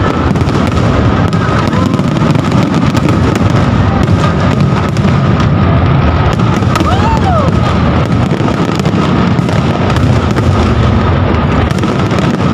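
Fireworks display finale-style barrage: a dense, unbroken run of bangs and crackling bursts, with a short whistling glide about halfway through.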